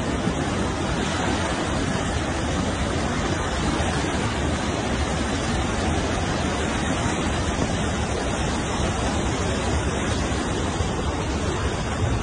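Steady rushing of fast-flowing floodwater, an even noise with no break.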